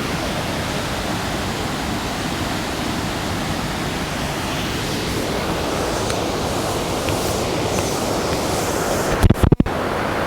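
Düden waterfall rushing and pouring down: a steady, dense roar of falling water. A short thump breaks it about nine seconds in.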